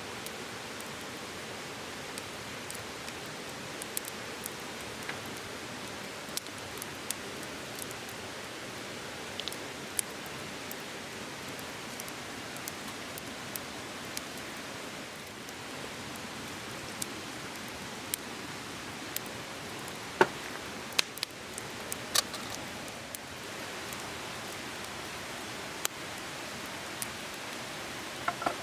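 Steady rushing of a river flowing close by, with scattered sharp clicks and ticks on top, a few louder ones about two-thirds of the way through.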